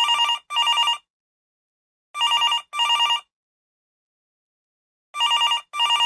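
Old telephone bell ringing in a double-ring pattern: pairs of short rings close together, with about two to three seconds of silence between pairs. There are three pairs, the first right at the start, the second about two seconds in, the third about five seconds in.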